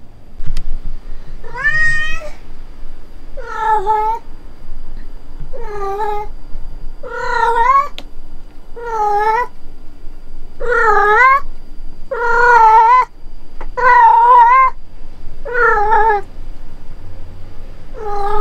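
Domestic cat meowing loudly over and over, about ten drawn-out calls, one every second and a half to two seconds, each wavering in pitch. The cat is calling for its owner, who is not in the room.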